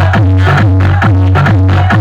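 Loud electronic dance music over a DJ sound system, with a heavy booming bass line and a fast, steady kick-drum beat.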